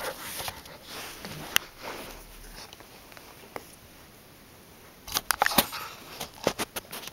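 Samoyed puppy snuffling and mouthing a plush toy close to the microphone: sniffs, rustles and sharp clicks in bursts at the start and again near the end, with a quieter stretch in the middle.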